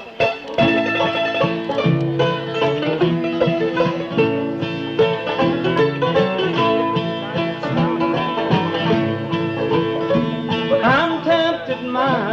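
Bluegrass band playing the instrumental opening of a song: banjo picking over guitar and bass, with a sliding fiddle line near the end.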